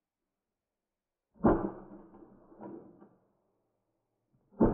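Work boot stomping onto a plastic toy fire truck on concrete: a sharp, loud impact about one and a half seconds in, a lighter knock about a second later, and another stomp at the very end.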